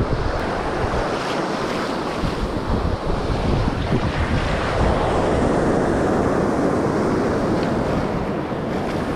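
Surf washing on the beach, with wind buffeting the microphone in a steady low rumble.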